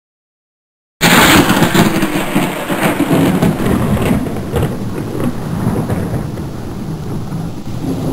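Thunder-and-rain sound effect: a thunderclap breaks in suddenly about a second in and rolls on as a rumble over steady rain noise, slowly fading.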